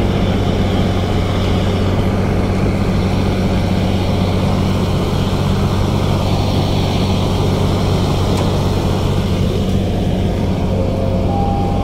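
Steady low drone of a passenger ship's engines heard on the open deck, a constant deep hum under an even rushing noise.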